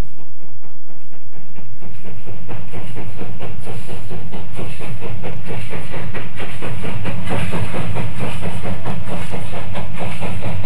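Steam locomotive running close by: a fast, even rhythm of beats over a hiss of steam, getting louder about two-thirds of the way through.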